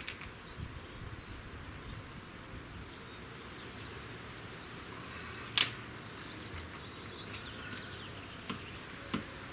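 Gamo Hunter 220 .177 breakbarrel air rifle being loaded: one sharp click about halfway through as the broken-open barrel is snapped shut, then a couple of faint clicks near the end. Steady faint outdoor hiss underneath.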